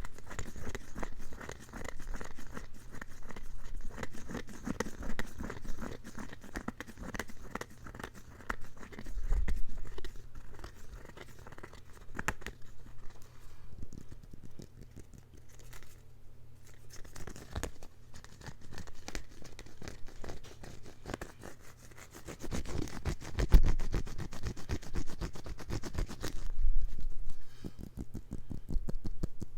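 Close-miked ASMR trigger sounds: dense, fast scratching and crackling, with a few louder low thumps, one about nine seconds in and two more past the twenty-second mark.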